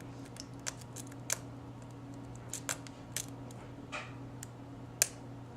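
Lock pick and tension wrench working the pins of a seven-pin Lockwood mortise cylinder: scattered faint metallic clicks and ticks at an irregular pace, with one sharper click about five seconds in. A steady low hum runs underneath.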